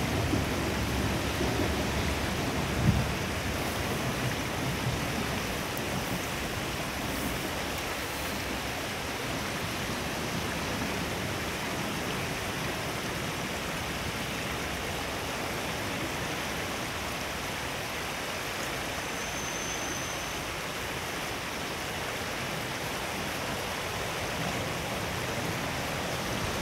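A JR West KiHa 47 diesel railcar's low rumble fading over the first few seconds as it runs away across the viaduct, under a steady rushing hiss that carries on throughout.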